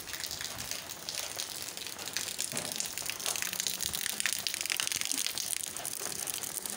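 Heavy rain falling on an open umbrella held overhead: a steady hiss of dense, fast drop hits.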